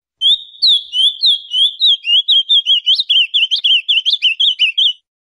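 Ultramarine grosbeak singing one long warbled phrase of quick whistled notes. The notes come slower at first and crowd together faster in the second half, then the song stops abruptly.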